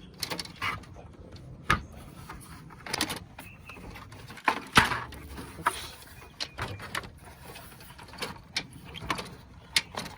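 Irregular knocks, clicks and rattles of a replacement radiator being worked down onto its rubber mounts in the engine bay, with a sharp knock about two seconds in and the loudest one about five seconds in.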